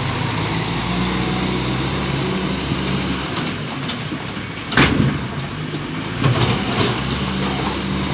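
Bobcat B900 backhoe loader's diesel engine running steadily under work, its note easing midway and picking up again near the end. A sharp metallic clank about five seconds in, with a smaller knock a second later.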